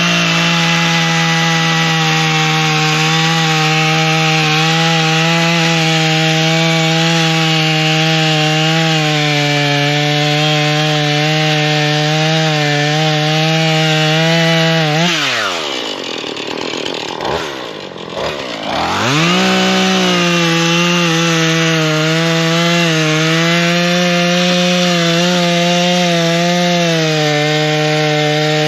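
Husqvarna 440 two-stroke chainsaw running at full throttle through wood, its pitch wavering slightly under load. About halfway it drops back toward idle for a few seconds, then revs up again for another long cut.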